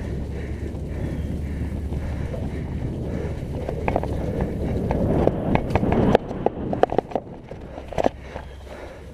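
Mountain bike rolling fast down a wet dirt singletrack: a steady rumble of tyres on the trail, with sharp knocks and rattles from the bike as it goes over bumps. The rumble builds to its loudest about six seconds in, then drops off, while the knocks continue.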